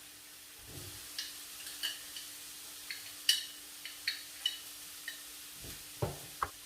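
A spoon clinking against a jar while scooping out an ingredient: a string of light, sharp, ringing clinks, then a few dull knocks near the end.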